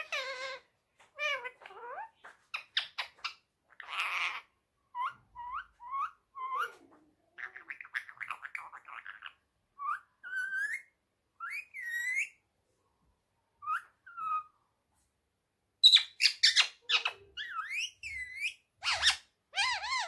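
Indian ringneck parakeet calling: a run of short whistles, chirps and harsher squawks, many sliding quickly up or down in pitch. It pauses briefly, then gives its loudest cluster of calls about sixteen seconds in.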